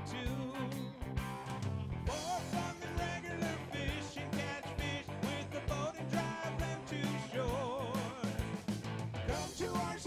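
Background rock music: a singing voice over guitar and a steady drum beat.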